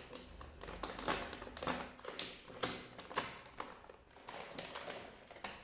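Plastic snack bag being slit open with a pocket-knife blade and handled: an irregular run of sharp crinkles and crackles.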